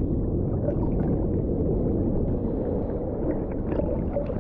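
Seawater sloshing and lapping around a camera at the waterline, heard as a muffled, low churning with a few faint splashes.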